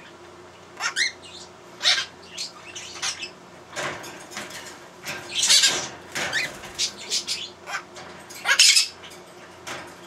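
Blue-crowned conure squawking in a run of a dozen or so short, harsh calls, the loudest and longest about halfway through and again near the end. These are agitated calls from a bird demanding to be let out of its cage.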